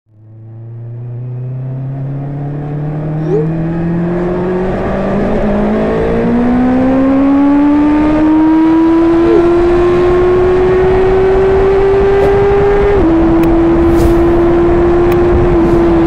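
Honda CB650R's inline-four engine pulling under acceleration, its note climbing gradually in pitch, with a small step down about thirteen seconds in, over steady wind rush. The sound fades in over the first second or two.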